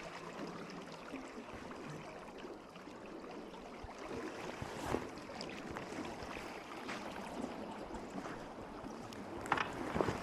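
Steady noise of moving water, with a few light knocks: one about halfway through and two close together near the end.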